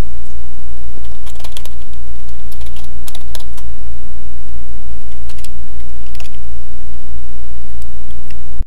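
A loud, steady low hum with scattered sharp computer clicks over it, typing-like, bunched in the first six seconds or so. The hum cuts off abruptly just before the end.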